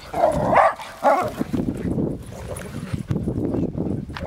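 A dog giving a few short barks in the first second and a half, followed by low rumbling noise.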